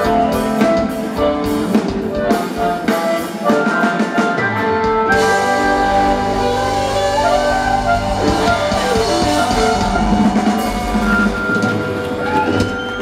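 A live rock band playing with electric guitars, bass and drum kit. A drum beat runs for the first four or five seconds, then the band holds ringing chords over a steady cymbal wash with a heavier bass.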